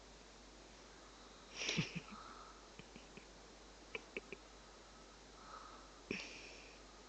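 A person's faint, slow breathing with two short sharp breath noises, one about two seconds in and one near the end, and a few small clicks in between.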